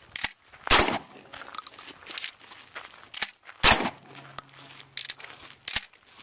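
Two shotgun shots about three seconds apart, the first about a second in, with quieter sharp clicks and clacks between them.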